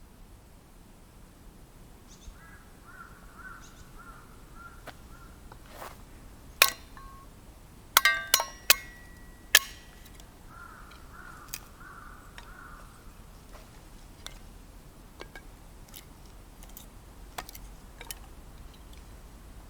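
Sharp clinks and knocks of tent-pitching gear being handled, loudest in a quick cluster about seven to ten seconds in. A bird calls faintly in the background twice.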